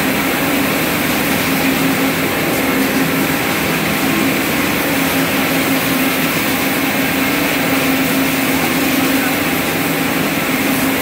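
Loud, steady drone of ring spinning machinery running in a spinning mill hall, with a low hum held at an even pitch.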